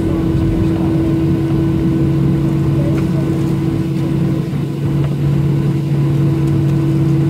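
Steady drone of a Boeing 737-700's CFM56-7B jet engines at low taxi power, heard inside the cabin over the wing. Two constant hum tones sit in the drone, the lower one strengthening about a second and a half in.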